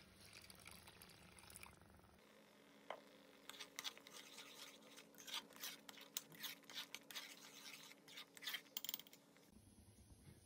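Thick curry paste bubbling in a steel pot, giving off many irregular sharp pops and spits for several seconds, over a faint steady hum.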